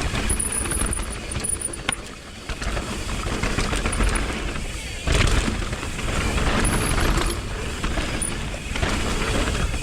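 Mountain bike riding fast down a dirt trail: wind buffeting the microphone over the rumble and rattle of tyres, chain and frame on rough ground, with a few brief high-pitched hisses.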